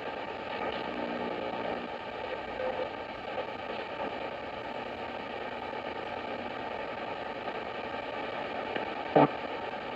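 Sony ICF-2010 shortwave receiver giving a steady hiss of band noise and static while tuned upward through the 4.5 MHz range in AM, with faint tones coming and going. A short loud blip about nine seconds in.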